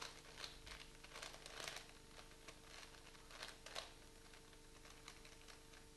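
Faint plastic clicks and rattles of a 4x4x4 Rubik's Cube's layers being turned by hand, a few scattered turns mostly in the first four seconds.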